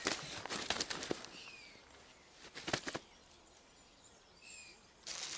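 A few short bursts of rustling noise, clustered in the first second and again near three seconds, with small birds chirping.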